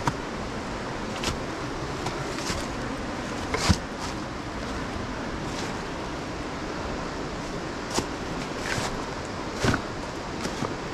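Steady rush of whitewater river rapids, with a few short sharp knocks scattered through it.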